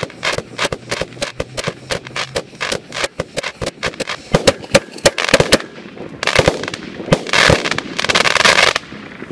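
Mirnovec Tornado 25-shot firework cake firing its last shots: rapid sharp cracks and pops from its crackling effects. Three stretches of dense crackle come in the second half, then die away just before the end as the box finishes.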